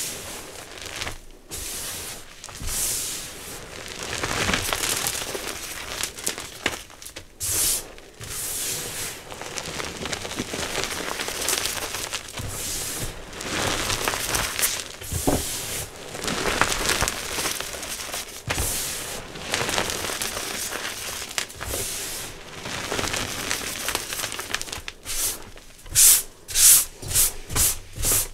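Hands crushing and rubbing old reformed gym chalk: a soft, powdery crunching and crumbling with many short gritty strokes. A quick run of about six louder, sharper crunches comes near the end.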